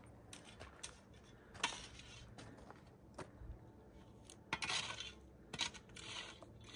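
Footsteps on a gravel and stone path: uneven steps with small clicks, one sharp loud step about a second and a half in, and a run of louder crunching steps in the second half.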